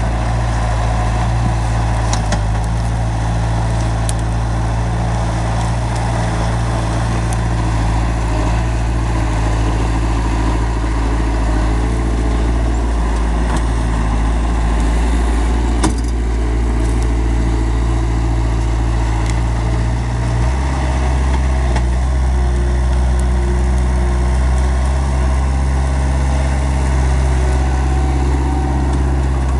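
Bobcat 753 skid-steer loader's diesel engine running steadily under load as the machine drives and pushes brush. About two-thirds of the way through, the engine note drops to a lower pitch and holds there.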